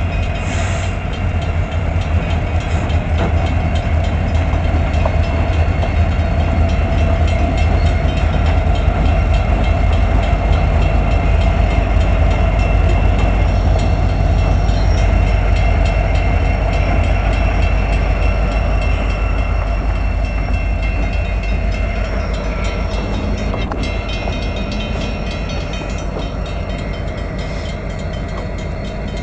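Union Pacific diesel-electric freight locomotives running as they move past, with a steady low engine drone and the noise of wheels on the rails. The sound eases off gradually over the last several seconds.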